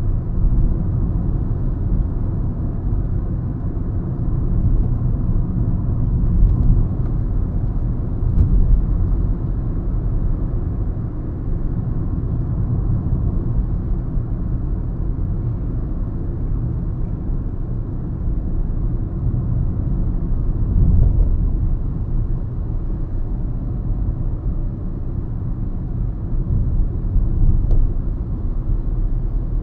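Car driving on the road, heard from inside the cabin: a steady low rumble of engine and tyre noise that swells and eases slightly with the drive.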